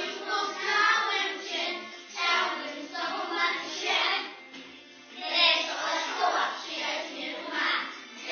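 A group of young children singing a song together, in phrases about a second long, with a steadier musical layer underneath.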